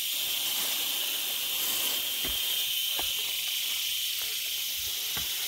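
Steady high-pitched drone of forest insects, with a few soft footfalls on the dirt trail.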